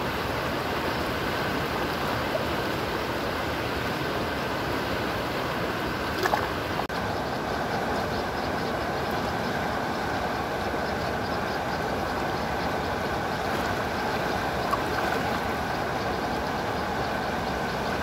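Shallow river water running over rocks and small rapids: a steady rushing, with a brief drop about seven seconds in.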